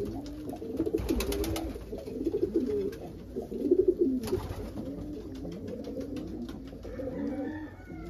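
Several domestic pigeons cooing at once, their wavering low coos overlapping without a break. A few sharp clicks come about a second in and again at about four seconds.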